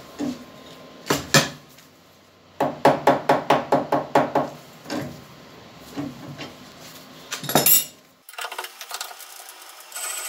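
Soft-faced mallet knocking on a cast-iron milling vise to shift it into position: a few single knocks, then a quick run of about ten taps at roughly five a second, then a couple more knocks, the last of them sharp.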